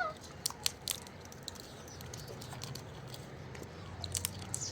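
A parrot eating: scattered small crunches and clicks of its beak working food, bunched about half a second in and again near the end.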